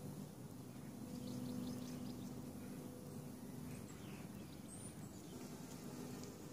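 Faint outdoor ambience: a few small bird chirps about a second in and a short high whistled call near the end, over a low steady background hum.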